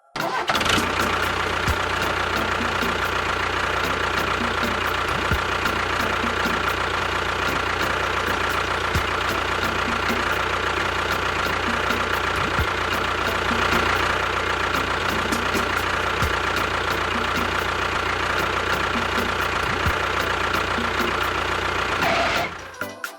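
A small motor or engine running steadily, a dense mechanical whirring with a faint steady whine, starting abruptly just after the start and cutting off abruptly near the end.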